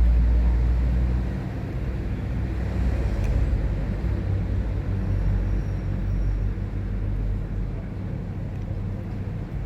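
Motor vehicle engine running with a steady low rumble, loudest in the first second or so, then easing to a lower steady drone.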